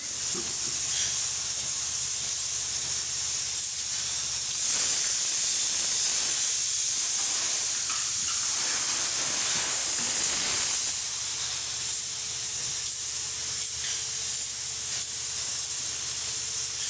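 Hose-fed spray gun hissing steadily as it sprays an insulating coating onto a concrete wall, louder for several seconds in the middle, with a low steady hum underneath.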